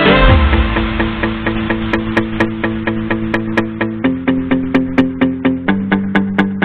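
Background music: held chords that change twice, over a steady beat of sharp clicks about four or five times a second.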